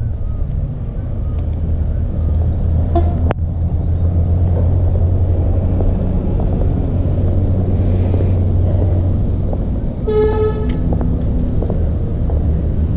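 Steady low rumble, with a short pitched toot rich in overtones about ten seconds in.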